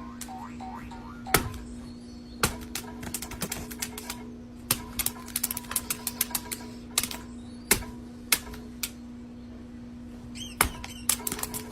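Irregular sharp taps and clicks, in quick clusters, over a steady low hum.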